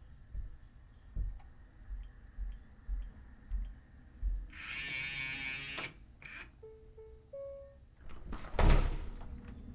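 Keypad door lock being opened: a run of soft button taps about two a second, then a buzzing whir of about a second as the lock's motor draws the bolt, a short three-note electronic beep tune signalling it has unlocked, and a loud thunk near the end as the latch releases.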